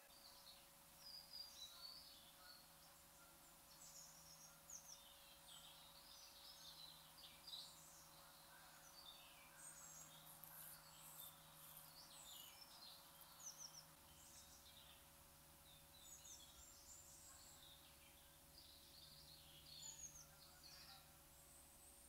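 Faint calls of small songbirds: many short, high chirps and call notes coming irregularly from several birds, over a quiet background hiss.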